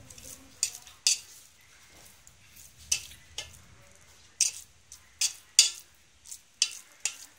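Spatula scraping and knocking against the side and bottom of a metal pot while stirring a thick egg masala, in short irregular strokes with a lull early on.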